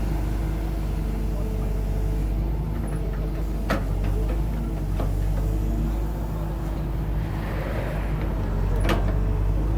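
Excavator engine running steadily, with two sharp knocks, one about four seconds in and one near the end.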